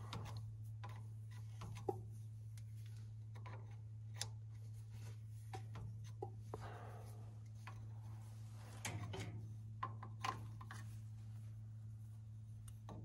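Faint, scattered clicks and light knocks of hand work on a diesel tractor's injector line fittings, over a steady low hum.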